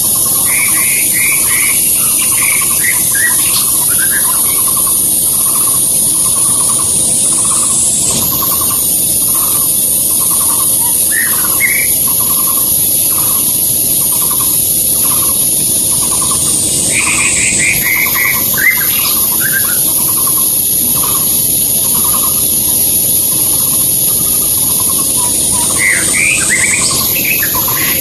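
White-rumped shama giving short bursts of quick, varied notes four times, over a loud steady high insect drone and a low note repeating about every half second.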